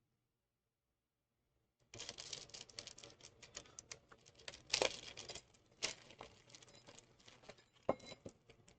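Plastic being handled on a workbench: crinkling and rustling with scattered sharp clicks, starting about two seconds in after near silence.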